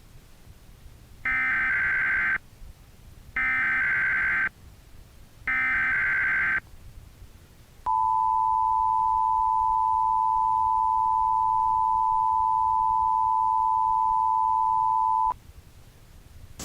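Emergency Alert System tones: three short bursts of screechy SAME digital header, about a second each, then the steady two-tone EAS attention signal held for about seven and a half seconds before it cuts off.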